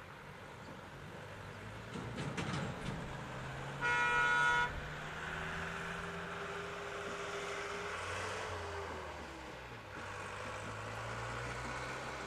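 C2 narrow-gauge steam locomotive sounding one short whistle blast about four seconds in, after a few clanks. Around it steam hisses steadily with a held tone and a low hum.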